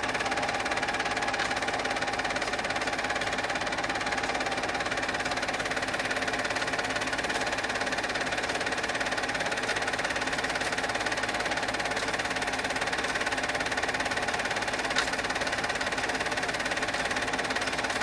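Cine film projector running: a steady mechanical whirr and clatter, with one short click about three-quarters of the way through.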